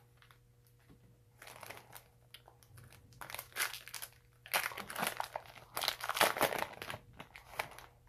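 Yu-Gi-Oh Extreme Force booster pack's foil wrapper crinkling as it is torn open by hand. It comes in irregular crackling bursts that start about a second and a half in and are loudest in the second half.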